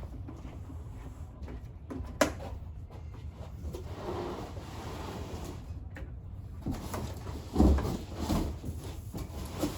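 Plastic garden-tower parts being handled: scattered knocks and rubbing, a sharp click about two seconds in and a heavier thump about seven and a half seconds in.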